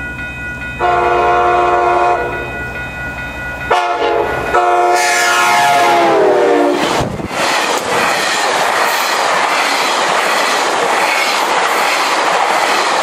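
GO Transit commuter train's horn blowing as the train comes through the crossing at speed: one long blast starting under a second in, then a second blast whose pitch drops as the cab car passes. It gives way to the loud rush of the bi-level coaches going by, with wheels clicking over the rail joints and a blast of wind.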